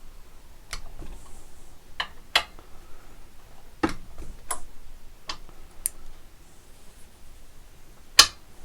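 Click-type torque wrench clicking out: sharp metallic clicks, about eight at uneven intervals, the loudest near the end, as the wrench is pulled to its setting against a torque tester to check where it releases.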